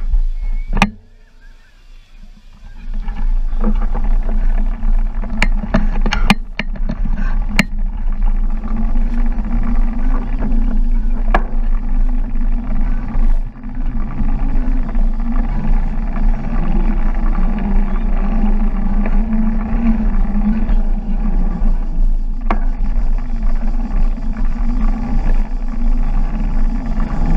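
Busy beach ambience: a steady low wind rumble on the microphone over the murmur of many people, with a few sharp clicks.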